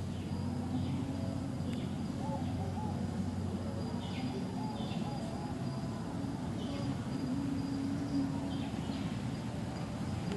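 Outdoor ambience: a steady low rumble under a thin, continuous high insect drone, with short high chirps every second or two.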